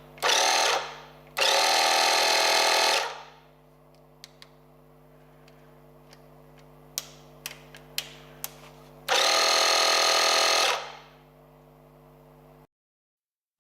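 Air Dragon portable tyre compressor running as it pumps up a car tyre: a loud rattling buzz that comes in three times, over a faint steady hum with a few light clicks between. The sound cuts to silence near the end.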